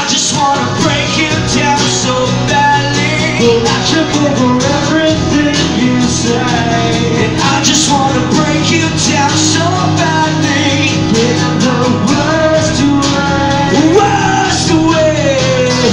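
Live acoustic rock song: strummed acoustic guitars, with a man singing the lead.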